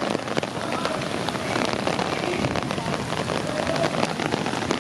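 Heavy rain falling on an open umbrella held overhead: a dense, continuous spatter of drop hits over a steady hiss of downpour.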